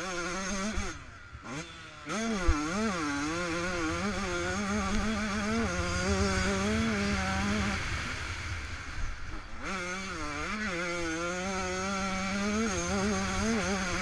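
Yamaha YZ125 two-stroke motocross engine ridden hard, its pitch climbing and falling as the throttle is worked through jumps and turns, with wind rushing over the helmet camera. The throttle drops off briefly about a second in and again near ten seconds in, and a single sharp thump comes about two and a half seconds in.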